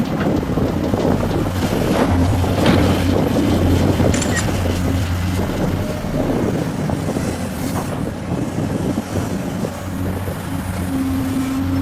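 Heavy diesel earthmoving machinery running under load: a steady low engine drone, with a few sharp knocks in the first half.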